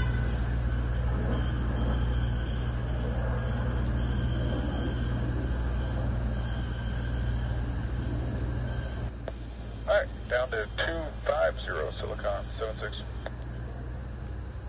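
Crickets chirring steadily on a summer evening, over the low drone of a single-engine Cessna 177B Cardinal that has just flown over. The drone drops away abruptly about nine seconds in.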